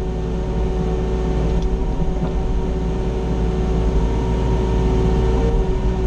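Mini excavator's diesel engine running steadily with a constant whine, heard from inside the closed cab as the machine swings.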